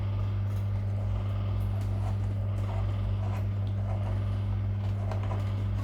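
A steady, low electrical hum with an even pitch, plus a few faint small knocks.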